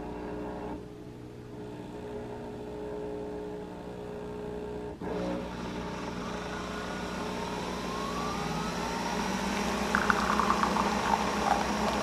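Nespresso Vertuo coffee machine brewing: a steady motor hum, then a rising whine as it spins up, and from about ten seconds in coffee begins streaming into the glass cup.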